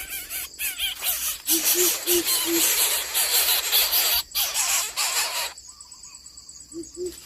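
Coucal giving its deep, hollow hooting call: four low hoots in quick, even succession, then another run starting near the end. A loud hiss and other birds chirping run over it.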